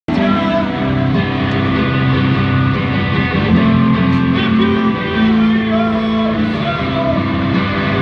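Rock music led by guitar, playing steadily throughout.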